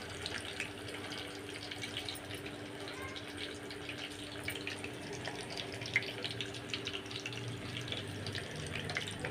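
Masala-coated rohu fish pieces deep-frying in a pan of hot oil: a steady sizzle dotted with many small crackles and pops.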